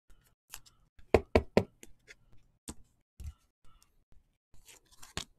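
Irregular short knocks and taps from trading cards and packs being handled on a tabletop, a quick cluster of three about a second in and scattered lighter clicks after.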